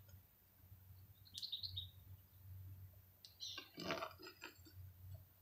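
Faint bird chirps, then a spoon scraping and clinking against the furnace crucible while dross is skimmed off molten aluminium, a cluster of short sharp strokes about three and a half to four and a half seconds in.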